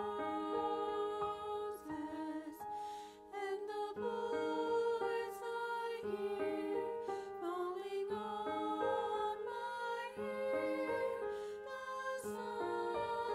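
Slow, gentle instrumental hymn accompaniment, held chords changing every second or so.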